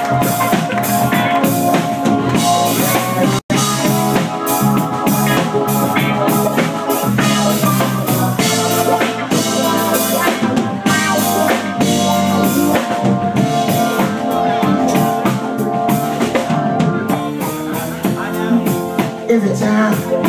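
Live rock band playing a song's instrumental intro: drum kit keeping a steady beat under electric guitars. The sound cuts out for an instant about three and a half seconds in.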